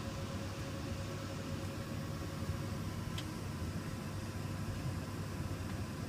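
Steady airliner cabin noise: an even, low rush of the engines and ventilation, with a faint steady hum and one small click about three seconds in.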